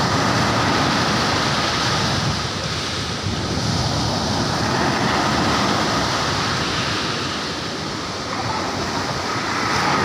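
Ocean surf breaking close in and washing up a sandy beach: a steady rushing wash that swells and eases over a few seconds.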